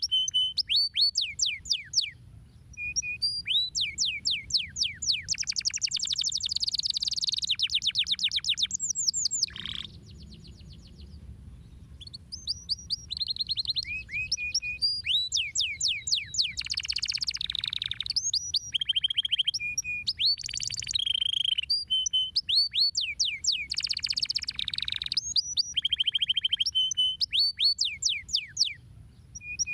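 Domestic canary singing: long fast trills of repeated downward-sweeping notes, phrase after phrase, with a short break about ten seconds in.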